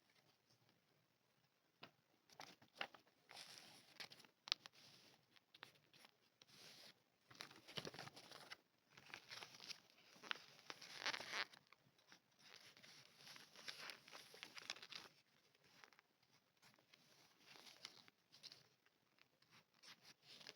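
Soft, irregular crinkling and tearing of small plastic packaging handled close up, with small clicks between the rustles.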